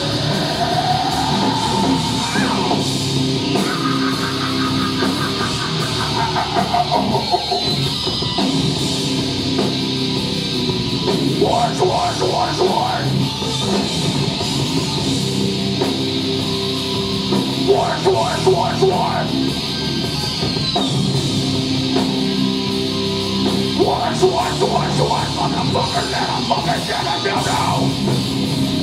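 Heavy metal band playing live: loud distorted electric guitars over bass and drums.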